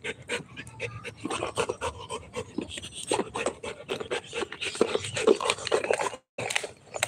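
A Rottweiler chewing and gnawing a spiky rubber ball, a dense, irregular run of wet clicks and rasps, mixed with the dog's panting. The sound cuts out briefly about six seconds in.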